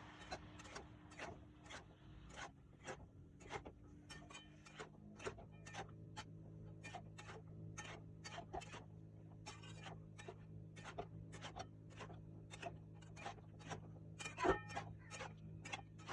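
A steady series of light taps or knocks, about two or three a second, with a low steady hum starting about four seconds in and one louder knock near the end.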